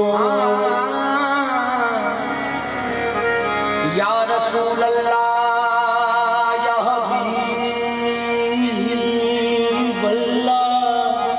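Harmonium sustaining steady chords under a sung, wordless melismatic vocal line that wavers and bends in pitch, in a devotional naat sung qawwali-style.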